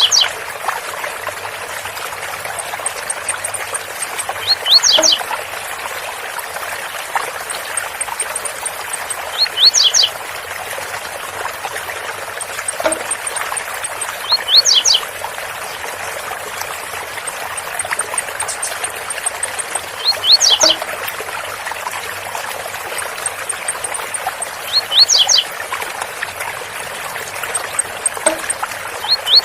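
Blue-black grassquit (tiziu) singing its short 'zel zel' song, a quick rising phrase repeated about every five seconds, over the steady rush of a waterfall.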